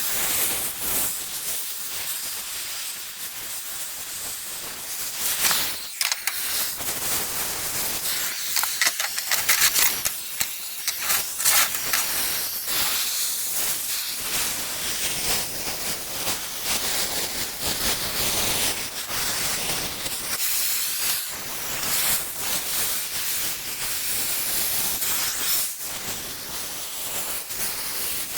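Oxy-fuel cutting torch hissing steadily as it cuts through steel plate, with sharper crackling spells between about five and twelve seconds in.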